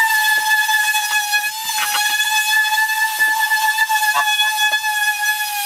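Small corded electric sander running on plywood: a steady high-pitched motor whine with the pad buzzing against the wood.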